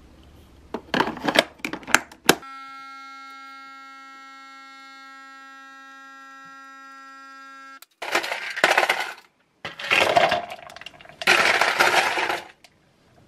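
A capsule coffee machine: a few clicks as the capsule holder is fitted, then a steady pitched pump hum for about five seconds while it brews, which cuts off suddenly. Then ice cubes crack out of a plastic tray and clatter into a plastic cup in three bursts.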